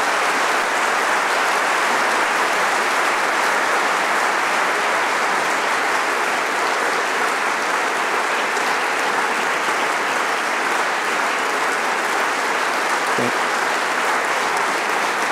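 Audience applauding: a steady, sustained round of clapping from a large crowd in a hall.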